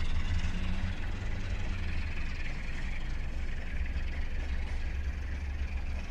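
Sulzer diesel engine of a CFR 060-DA diesel-electric locomotive running with a deep, steady rumble, slowly growing fainter.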